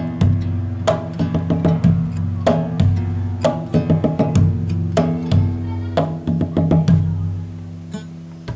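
Background music: a wood-block-like percussion beat over sustained low notes, fading somewhat near the end.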